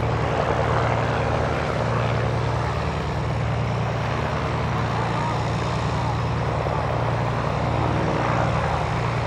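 Light propeller aircraft engine running with a steady drone.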